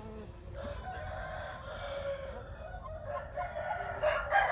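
Roosters crowing: a long crow starting about half a second in, then a louder crow near the end.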